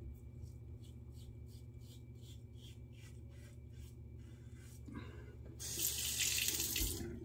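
Yates H-plate safety razor scraping through lathered stubble in quick, short strokes, about four a second. Near the end a tap runs for about a second and a half.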